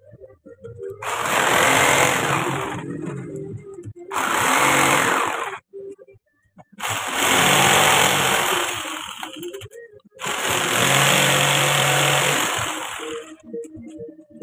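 Handheld electric power tool cutting into a wooden door panel, run in four bursts of one to three seconds with short pauses between.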